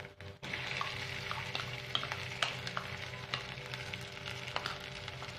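Mashed boiled potato sizzling as it goes into hot oil with cumin and green chilli paste, with a steady frying hiss and a spoon tapping and scraping in many short clicks. The sound drops away briefly right at the start.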